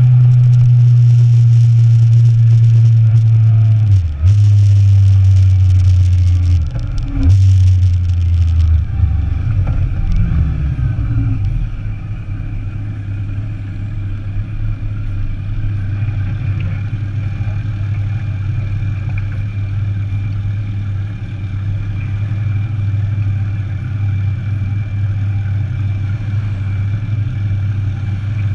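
Motorcycle engine running at a steady note with wind rushing past the microphone. The engine note breaks briefly twice, about four and seven seconds in. From about nine seconds the wind hiss falls away and the engine settles to a quieter steady run, as the bike slows.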